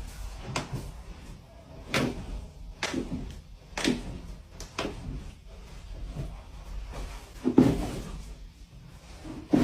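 Hands working a person's body on a treatment table during manual therapy: a string of irregular short thuds and knocks, about eight in all, the loudest about three-quarters of the way through.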